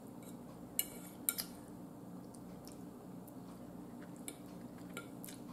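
Metal fork tapping and scraping on a dinner plate: a few light clinks, two close together about a second in, over a faint steady low hum.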